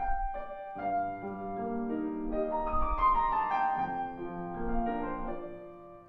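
Longato grand piano played solo in a classical piece: a phrase of held notes that climbs and grows loudest about halfway through, then descends and fades away near the end.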